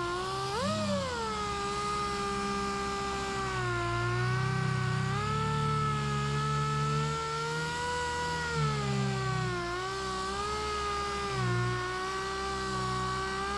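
Air-powered palm sander wet sanding car clear coat with a fine-grit disc, running with a steady high whine. Its pitch sags slightly now and then as it is pressed into the panel.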